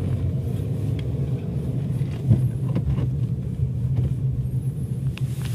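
A vehicle engine running steadily, a low rumble, with a single knock about two seconds in.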